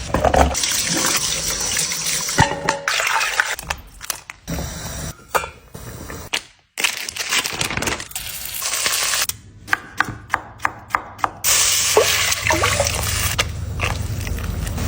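Kitchen sounds of water running and pouring into a sink or pot. A little past the middle comes a quick run of about eight sharp knocks.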